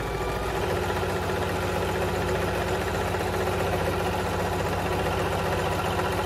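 Electric sewing machine running steadily at speed, its needle stitching together the coiled fabric rows of a jelly roll rug.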